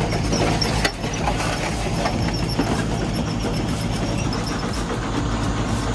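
Engine of a homemade firewood processor running steadily, with a sharp knock about a second in.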